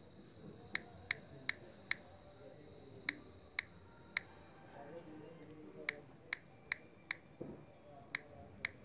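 Key taps on a phone's on-screen touchscreen keyboard while a password is typed: about a dozen short, sharp clicks at uneven spacing, some in quick runs and some after pauses.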